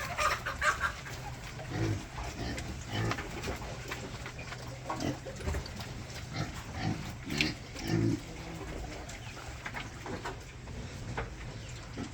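Pigs grunting: short low grunts, one every second or two.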